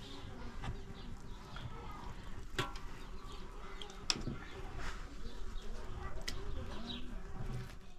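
A few sharp knocks of a cleaver chopping goat meat and bone on a wooden log block, over a low background rumble.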